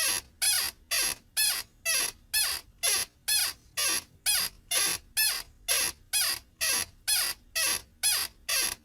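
A repeating series of short, sharp squeaky chirps, about two a second, each with a quick falling pitch, evenly spaced and alike like a looped effect.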